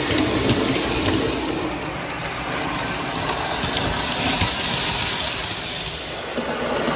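O gauge model train, a Williams CSX diesel locomotive pulling Menards tank cars, running on tinplate tubular track: a steady rumble of wheels and motor with frequent light clicks.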